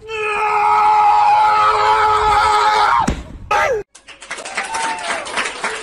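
A dog howling: one long, steady howl that drops in pitch about three seconds in, a short falling call, then wavering howls that rise and fall.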